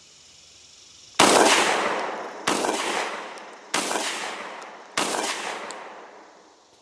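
Four shots from an SDS Titan TTF-12 semi-automatic 12-gauge shotgun firing 2¾-inch number 4 buckshot. The shots are evenly spaced about a second and a quarter apart, and each is followed by a fading echo.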